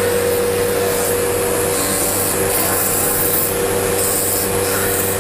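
A small U1 engraving-cutter grinder's motor running steadily, a constant whine over hiss.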